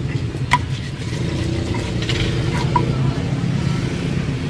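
Steady low rumble of motor traffic, with a sharp click about half a second in and a fainter click a little before three seconds.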